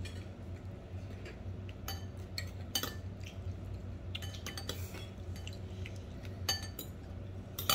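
Metal spoon and fork clinking and scraping against a ceramic bowl of rice, in scattered light clicks.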